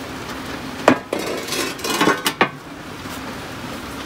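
Cast iron wood stove parts clanking as they are handled: a sharp knock about a second in, then a few more knocks and clinks over the next second and a half.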